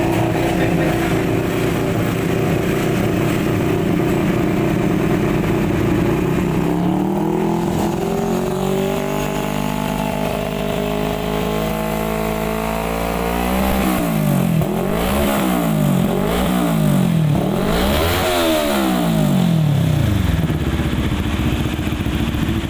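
CFMoto 400NK parallel-twin motorcycle with a freshly fitted Villain R11 aftermarket muffler and dB killer, idling steadily. It is then held at a slowly rising engine speed, and about halfway through it is revved in a quick run of about four blips before dropping back to idle.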